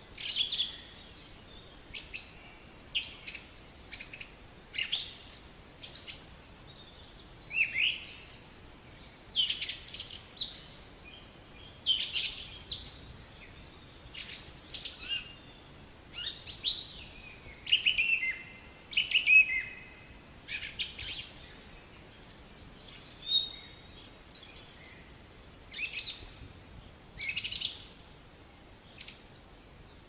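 Black-capped chickadee calling: short, high chirps and quick falling notes in clusters about once a second, with a few brief held notes now and then.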